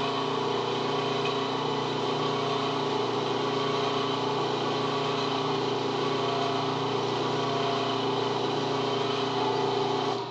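Metal lathe motor running at a steady speed, spinning a pool cue butt, with a constant hum and hiss that cut off suddenly at the end.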